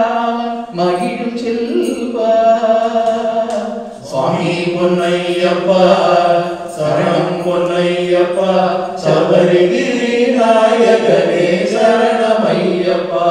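Voices chanting a Hindu devotional bhajan together in long held notes, phrase after phrase with short breaks for breath.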